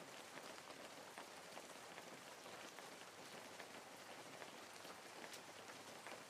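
Rain ambience: a faint, steady hiss of falling rain with many small drop ticks.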